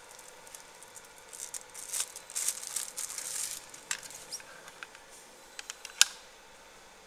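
Light crackling hiss with scattered small ticks from a CO2 laser marking a blue plastic box. About six seconds in there is a single sharp plastic click as the box is lifted off the machine's fixture.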